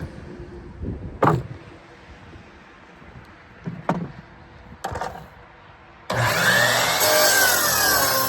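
A few sharp knocks of wood being handled. About six seconds in, an electric saw starts up suddenly and cuts wood loudly, its whine dipping and rising under the load.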